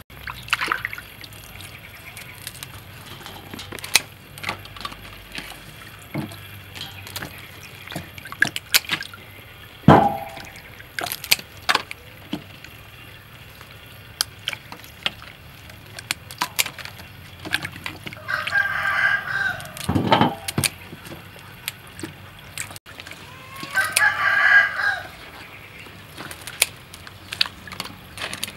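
A rooster crowing twice in the second half, each crow lasting over a second. Underneath are the sloshing and splashing of hands rinsing spring onions and turmeric in a metal basin of water, with scattered clicks and a couple of sharper knocks.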